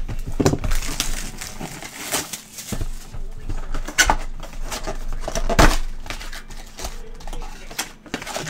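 Hands handling and opening a sealed cardboard trading-card box: irregular knocks, scrapes and crinkles of cardboard as the box is turned over and its flap pulled open, with a couple of sharper knocks in the middle.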